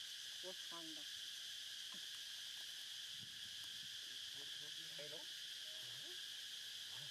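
Steady high-pitched insect chorus. Short, faint pitched calls come through underneath now and then, a few of them rising in pitch.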